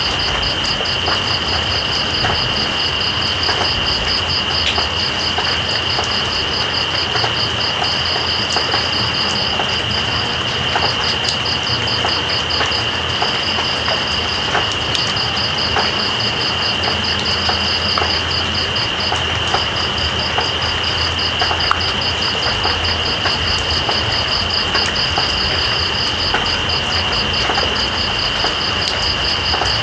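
Steady rain hiss with night insects calling over it: one holds a continuous high trill while another pulses rapidly and evenly at a higher pitch, pausing now and then.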